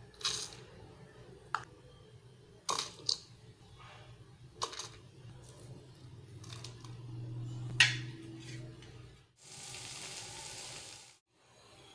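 Whole spices and curry leaves dropping into a stainless steel mixer grinder jar: a scatter of sharp clicks and taps as spoonfuls land on the metal, the loudest a little before the end. Then a steady rushing noise for about two seconds near the end.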